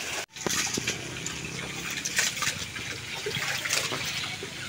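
Steady hiss like trickling water, with a few faint knocks as a knife cuts chicken on a wooden cutting board.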